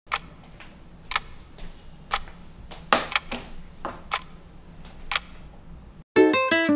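A clock ticking, one sharp tick about every second, with a few extra clicks in between. Music starts suddenly near the end.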